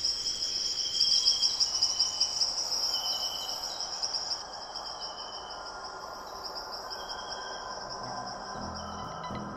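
A night chorus of insects: a steady, fast, high cricket-like trill, with shorter trills about a second long repeating over it. It grows quieter about halfway through.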